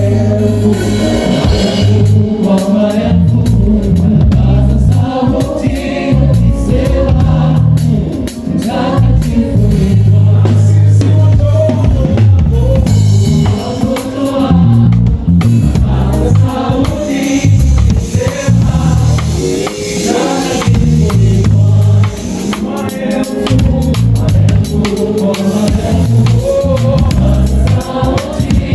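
Live gospel band with drum kit and bass, and a choir singing over it, heard over the stadium sound system.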